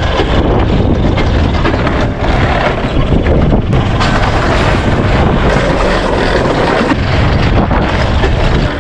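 Alpine coaster sled running fast down its steel rail: a steady, loud rumble of the wheels on the track, mixed with wind rushing over the microphone.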